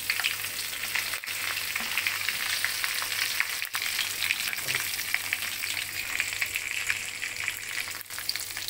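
Curry leaves and cumin seeds sizzling in hot sesame oil in a pan, a dense, steady crackle of many fine pops.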